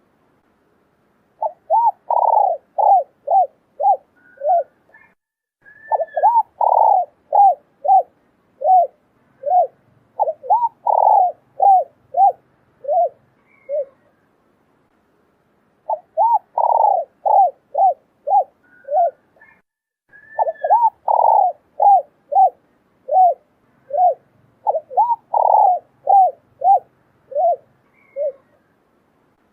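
Spotted doves cooing, male and female: runs of short, rhythmic coo notes, some longer and louder than others. The run stops for about two seconds midway, then the same sequence of coos starts over.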